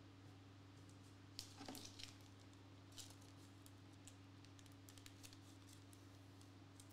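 Near silence over a steady low hum, with a few faint soft clicks and ticks of trading cards being leafed through in the hands, most of them about one and a half to two seconds in.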